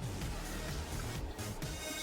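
Background music playing quietly.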